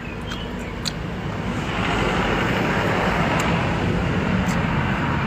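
A motor vehicle passing on a nearby road: a steady rushing noise with a low engine hum swells about two seconds in and eases off near the end. A few light chewing clicks come at the start.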